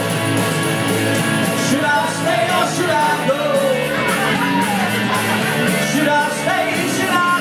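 Live rock music from a two-piece band through PA speakers: an amplified electric guitar with a singer's voice sliding up and down over it, over a steady beat.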